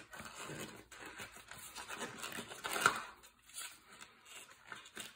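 Soft rubber of a non-belted RC drag-racing tire being flexed and worked by hand as a foam insert is pushed inside it: faint, uneven rubbing and scuffing, with one louder scuff about three seconds in.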